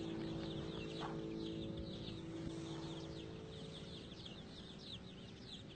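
Birds chirping: many short, high chirps overlapping in quick succession. A low steady drone underneath stops about three and a half seconds in, and the whole sound slowly fades.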